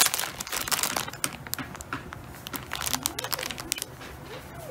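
Clear plastic bag of embroidery floss skeins crinkling as it is handled and turned over in the hands, busiest in the first second and a half and thinning out toward the end.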